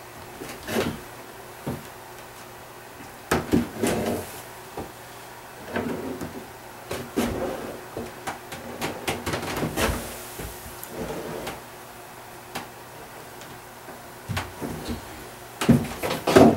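Ski waxing iron being drawn along a ski base, melting in base prep wax, with intermittent sliding scrapes and knocks of the iron and ski against the bench. A louder cluster of knocks comes near the end as the iron is lifted off the ski.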